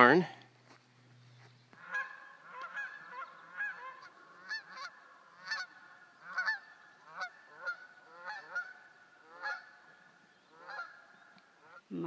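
Geese honking repeatedly, starting about two seconds in, with a call every second or so.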